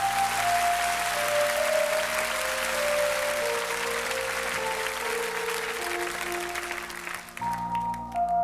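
Audience applauding over slow instrumental stage music, its melody stepping down note by note. The applause stops abruptly about seven seconds in and the fuller music comes back.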